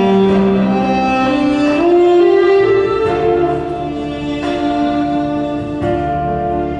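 Slow instrumental accompaniment music, a melody of long held notes that moves smoothly from one pitch to the next, carried by bowed strings.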